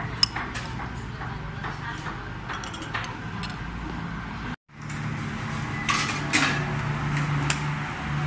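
Metal spoon clinking against a ceramic bowl as it scoops soft tofu pudding. After a sudden break, the sound of a busy street food stall follows: a steady low hum with utensil clatter and voices in the background.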